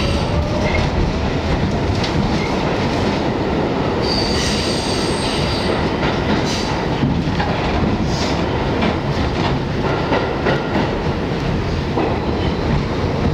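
R62A subway train running on the track, heard from inside the car: a steady rumble with wheel clatter over the rail joints. A thin, high wheel squeal sounds for about two seconds, starting about four seconds in.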